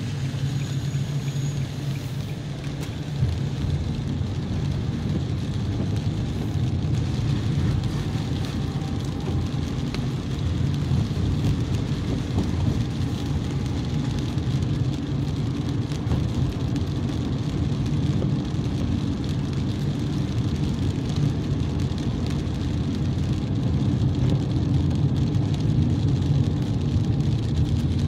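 Steady rumble of a car driving on wet roads, heard from inside the cabin: engine and tyre noise with a light hiss of rain and spray. There is one brief knock about three seconds in.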